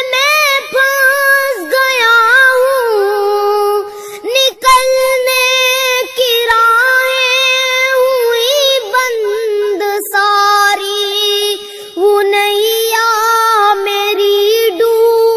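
A high voice singing a long melodic passage of a devotional song without clear words, holding and bending ornamented, wavering notes.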